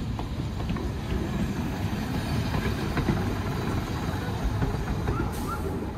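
Heritage diesel railcar passing slowly at close range: its diesel engine running with a steady low rumble, and a few wheel clicks over the rail joints.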